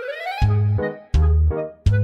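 Background music starting up: a short rising glide, then a tune over strong bass notes that come about every three-quarters of a second.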